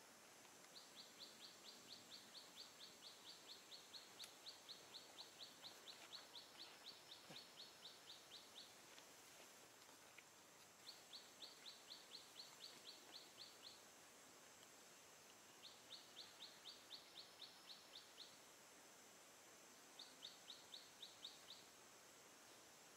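A faint bird calling in quick runs of short, sharp high notes, about four a second, in four bouts: a long one of about eight seconds, then three shorter ones. A steady faint high hiss lies underneath.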